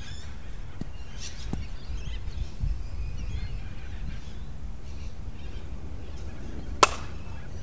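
A single sharp crack of a cricket bat striking the ball, near the end, over a steady low background rumble.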